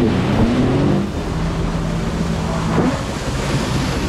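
Brand-new jet ski's engine running under way, its pitch dipping and rising with the throttle near the start, holding steady, then climbing again near the end, over a rushing hiss of water and wind.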